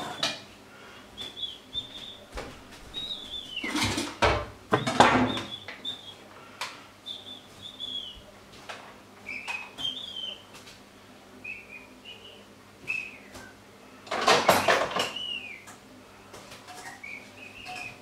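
Kitchenware being handled: metal pots and utensils clatter, loudest in two spells, about four seconds in and about fourteen seconds in. Short high chirps, mostly falling in pitch, come and go throughout.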